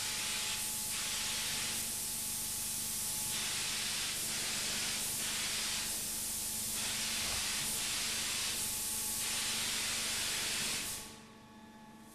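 Spine painting robot's spray gun hissing as it sprays paint in repeated bursts, over a faint steady hum. The hiss drops away shortly before the end.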